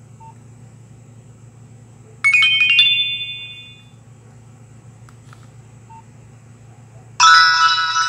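A Nokia 1680 classic's loudspeaker playing its built-in message alert tones. A short bright chime comes about two seconds in and rings down over a second or so. A louder, fuller multi-note alert starts near the end, with two faint short beeps in between.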